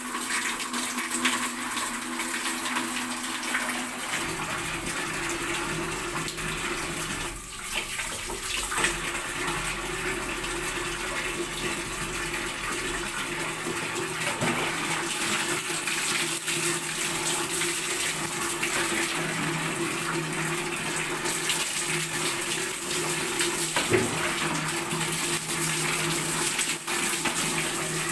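Water running steadily from a bathroom wall tap, a continuous splashing rush.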